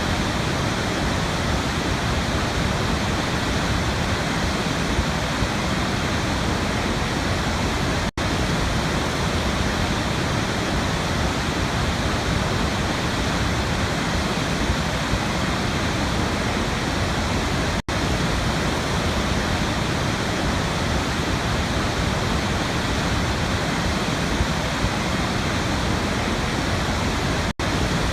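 Waterfall: a steady, even rush of falling water, with a split-second dropout about every ten seconds.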